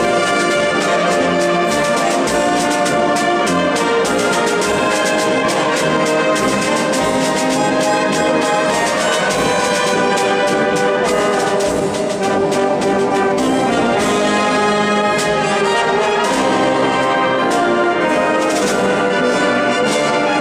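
Concert wind band playing a sustained, full passage led by trombones and trumpets, with saxophones in the ensemble, echoing in a church.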